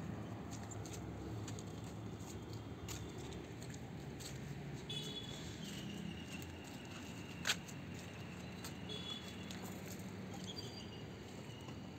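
Outdoor rooftop background of a steady low hum, with a few light taps and one sharp click about seven and a half seconds in. Faint high-pitched tones come and go a few times in the second half.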